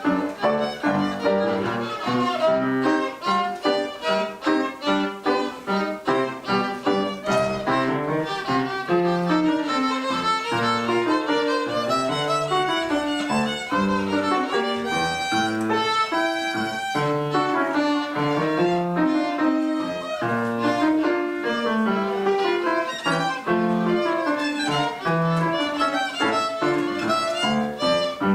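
Two violins playing the first movement of a concerto for two violins, quick running passages, with a piano accompaniment beneath.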